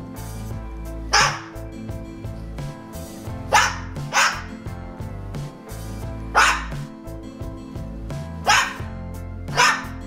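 Cockatoo barking like a dog: six short, sharp barks at irregular intervals, two close together. Music with a steady beat plays underneath.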